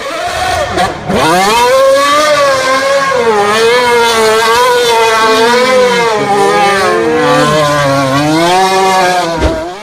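Formula One car engine revving hard and unevenly while the car spins donuts, its pitch rising and falling over and over. It gets louder about a second in.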